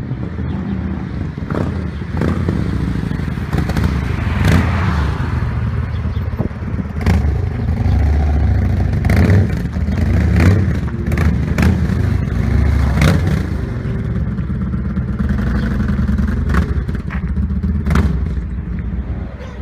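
Yamaha Road Star Warrior 1700's air-cooled V-twin, fitted with a reworked exhaust, running as the bike rides up and pulls in, a deep rumble that gets louder about two seconds in. Irregular sharp cracks run through it.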